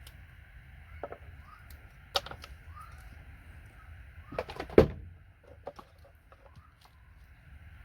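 Scattered clicks and knocks of plastic connector end pieces being cut and snapped off by hand tools, the loudest knock just under five seconds in.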